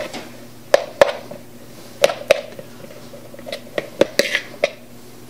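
Metal fork mashing hard-boiled egg yolks in a plastic mixing bowl: about ten sharp, irregularly spaced taps and clicks as the fork strikes the bowl.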